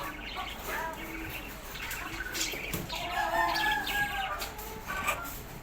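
Birds calling: a string of short pitched calls that rise and fall, over a steady low hum.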